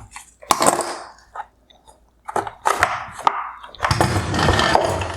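Pliers gripping and twisting a plastic wire harness connector on the back of a headlight housing. Several sharp plastic clicks and cracks come in the first three seconds, then a longer stretch of scraping and rattling near the end.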